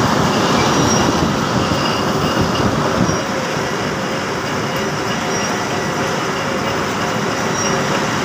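Metal lathe running under load, its cutting tool turning a steel bar for a foundation bolt: a steady machining noise, slightly louder for the first few seconds.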